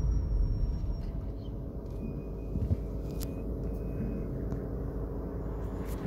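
Steady low rumble of a car driving, heard from inside the cabin, with a single sharp click about three seconds in.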